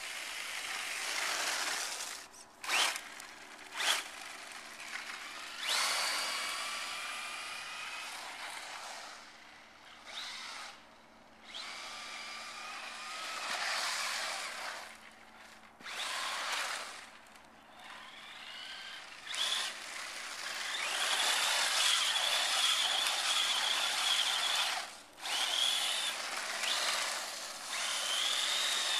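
Traxxas Slash 4x4 Ultimate's brushless electric motor whining as the RC truck is driven, rising and falling in pitch with the throttle. The whine cuts out briefly several times and runs loudest and steadiest for a few seconds past the middle.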